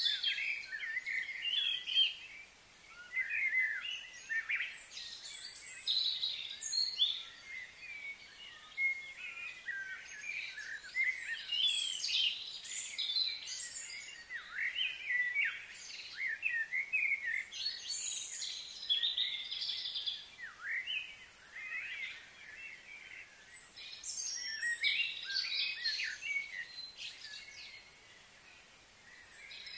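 Wild birds chirping and singing, many short high calls and quick falling notes overlapping without a break.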